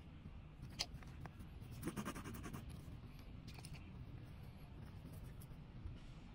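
Faint handling noise from a tubeless tyre plug repair: small clicks and scratchy ticks as the plug insertion tool, the rubber plug strip and the glue tube are worked by hand, with a quick run of ticks about two seconds in. A low steady rumble runs underneath.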